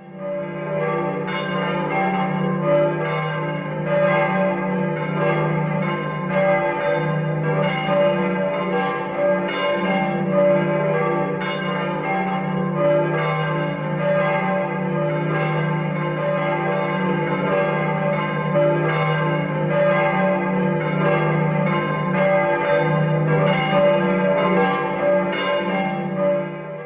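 Church bells ringing in a continuous peal, many overlapping strikes, over a steady low tone; it starts abruptly and fades out at the end.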